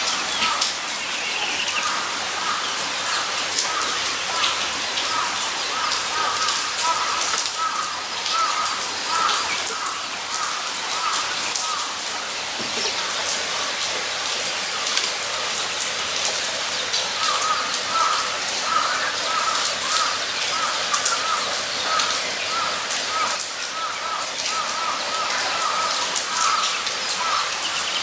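Guinea pigs giving quick runs of short, repeated squeaks, about four a second, in two long stretches with a pause of a few seconds midway, over a dense patter of soft clicks and rustling.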